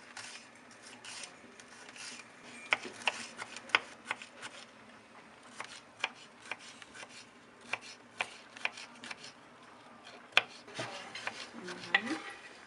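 Kitchen knife chopping red bell pepper on a wooden cutting board: irregular sharp knocks of the blade striking the board.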